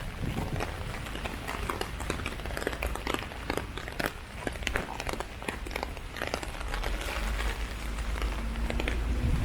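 Heavy rain falling on an umbrella: dense, irregular drop hits over a steady low rumble.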